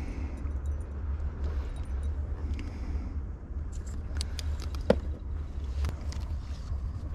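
Wind rumbling on the microphone, with small clicks and scrapes from a glow-in-the-dark metal jig and fishing tackle being handled; one sharp click about five seconds in.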